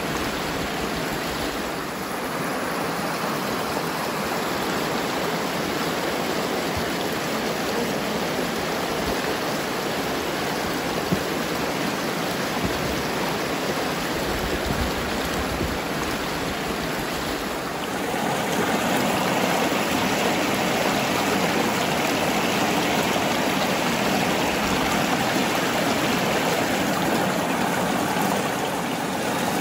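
Water from a paddy field running steadily out through an outlet and into a fish-catching net bag. It gets louder about two-thirds of the way through.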